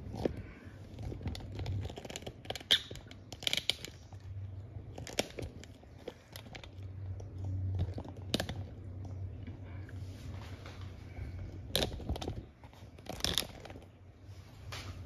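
A person biting and chewing a whole raw lime, rind included: irregular sharp clicks of chewing scattered throughout, over a faint low steady hum.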